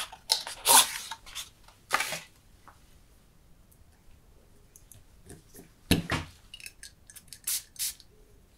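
Unboxing a Mauboussin Cristal Oud perfume bottle: paperboard scrapes and rustles as the bottle slides out of its box, then quiet handling. The cap is pulled off the bottle with a knock about six seconds in, followed by a few light clicks near the end.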